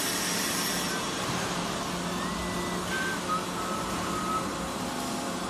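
Steady machine-shop hum and background noise, with a few short high beeps of different pitches in the middle.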